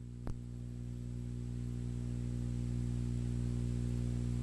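A steady low droning hum with many overtones, slowly growing louder, with a faint click about a third of a second in.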